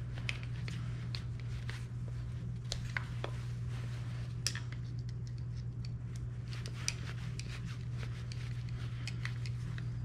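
Light, irregular clicks and small scrapes of metal shifter parts being handled while a small piece is screwed onto the shifter, over a steady low hum.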